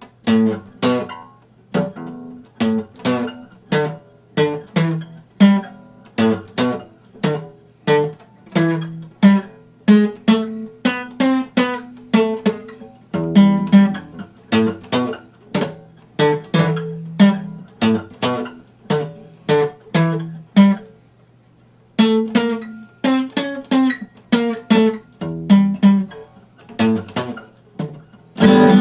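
Epiphone acoustic guitar being picked, a steady run of single notes and chords about two a second, with a brief pause about three-quarters of the way through before the playing resumes.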